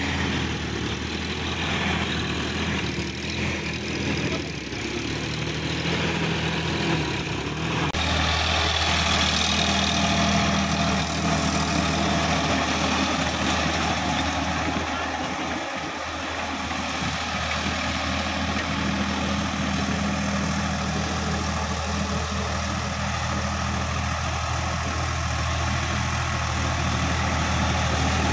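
Sonalika farm tractor's diesel engine running steadily while tilling. About eight seconds in, the sound cuts abruptly to a tractor engine running steadily as it pulls a rear rotavator.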